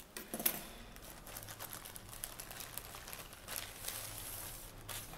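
Plastic courier mailer bag crinkling and rustling as hands work it open and draw a cardboard box out of it, with a sharp crackle about half a second in.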